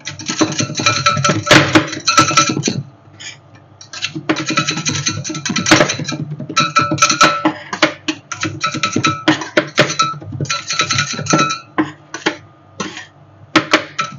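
Metal spatulas chopping and scraping on a rolled-ice-cream cold plate, in bursts of many quick metallic clacks broken by short pauses.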